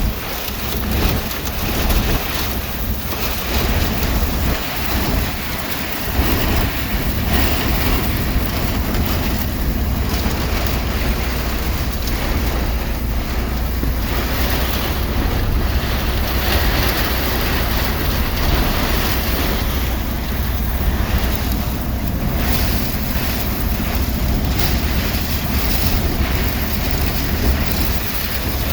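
Strong gusting storm wind rushing and buffeting the microphone, a continuous loud rush with a heavy low rumble that swells and eases.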